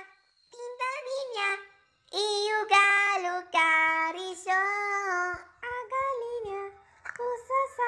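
A child's high voice singing short, unaccompanied phrases, with brief silent pauses between them.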